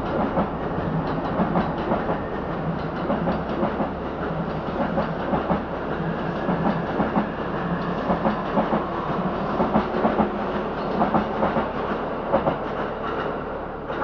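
E657 series Super Hitachi limited express electric train passing over a level crossing close by, its wheels clattering over the rail joints in a run of sharp clacks, heard from inside a waiting car. The sound eases off near the end as the last car clears the crossing.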